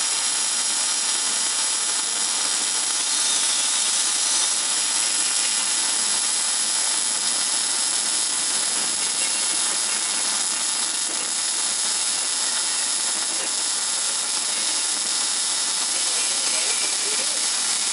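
Welding arc hissing steadily and without a break.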